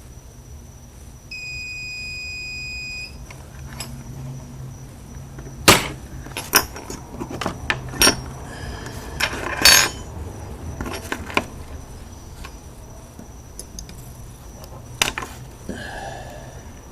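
Multimeter continuity-test beep, one steady tone lasting about two seconds, near the start. It is followed by a series of sharp clicks and knocks.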